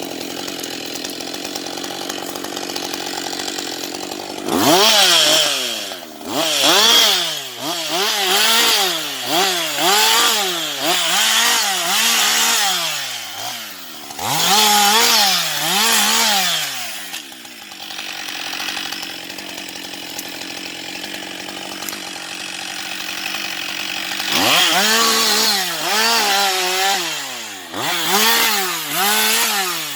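Husqvarna 560XP two-stroke chainsaw running. It idles steadily, then is revved over and over with the pitch rising and dropping about once a second. It settles back to a steadier run and near the end goes into the same rise-and-drop pattern again.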